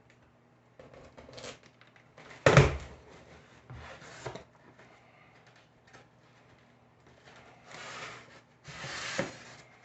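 Cardboard box of a wine rack kit being opened and handled: short rubbing and scraping noises, a sharp knock about two and a half seconds in, and longer rustling near the end.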